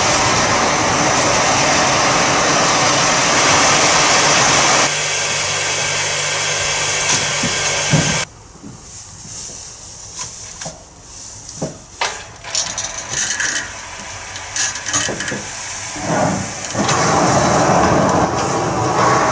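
Monorail hay crane's hoist running with a loud steady drone while carrying a load of hay. It cuts off suddenly, giving way to loose hay rustling and light knocks as the hay grab is worked into the hay. Near the end the hoist starts again, lifting the grab full of hay.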